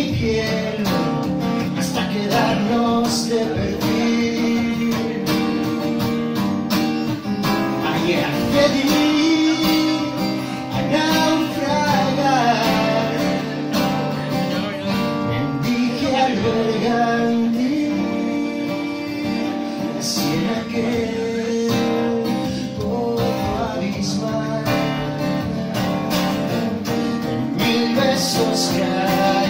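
Acoustic guitar strummed through a slow instrumental passage of a live song, with a second melody line sliding in pitch over the chords.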